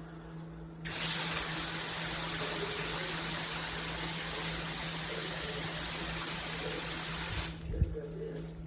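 Water spraying from a handheld shower head: a steady hiss that starts suddenly about a second in and cuts off suddenly near the end, followed by a brief low thump.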